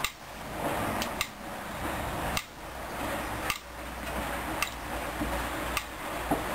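Hoover DYN 10124DP front-loading washing machine turning its drum during the last rinse: water swishing with a load of jackets, with sharp clicks roughly once a second.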